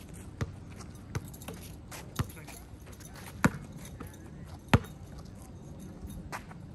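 A basketball bouncing on a hard court: about five sharp bounces at uneven intervals of roughly a second, with fainter knocks in between.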